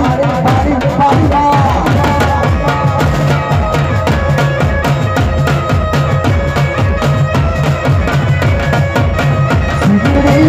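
Live Gujarati folk music: a dhol and other drums play a fast, steady rhythm under a melody line, mostly without singing.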